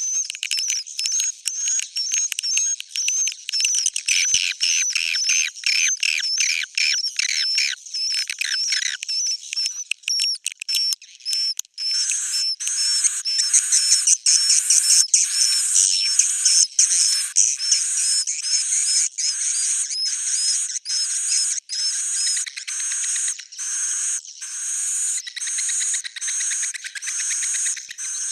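Swiftlet lure call: edible-nest swiftlets' high twittering chirps in quick, evenly repeated trills, with no low end. About halfway through the pattern shifts to a louder, steadier run of pulses at roughly two a second.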